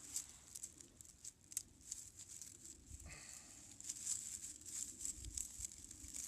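Faint rustling with scattered light clicks and ticks from hands handling the spliced invisible-fence wire, a little busier in the second half.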